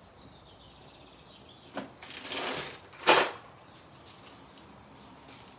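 Hands rummaging among small chainsaw parts: a faint click, about a second of rustling two seconds in, then a louder, sharp rustle just after three seconds.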